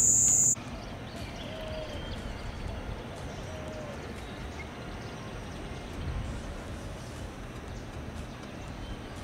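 Loud, steady chirring of night insects, cut off suddenly about half a second in. Then quieter outdoor ambience with a low rumble and a few faint, short bird-like chirps.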